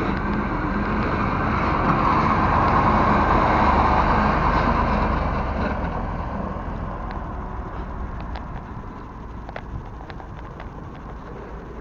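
A truck driving past close by: engine and tyre noise swells to a peak about three to four seconds in, then fades away.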